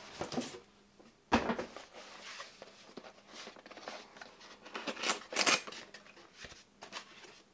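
Cardboard packaging of a CPU cooler being handled: a sharp knock about a second in, then irregular scraping and rustling of the cardboard insert holding the fan, loudest near the middle.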